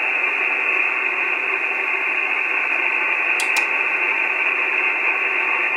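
Steady receiver static from an Icom IC-9700 transceiver tuned to a 435 MHz satellite downlink, heard between signals. The hiss has no treble, cut off by the single-sideband filter. Two quick faint clicks sound about three and a half seconds in.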